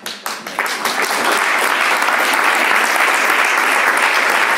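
Audience applauding: a few scattered claps that build within about a second into steady, full applause.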